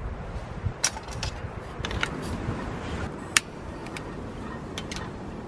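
Several sharp clicks and light metallic clinks, the loudest about three seconds in, as a long-nosed gas lighter is clicked and moved inside a tin-can windscreen to light a homemade carbon-felt alcohol stove. A low wind rumble on the microphone sits beneath.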